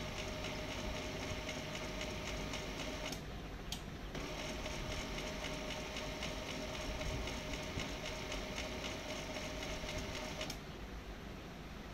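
HP LaserJet Pro MFP M126nw laser printer's internal mechanism running with a steady whine during a restart. It stops about three seconds in, a click follows, it starts again about a second later, and it stops near the end.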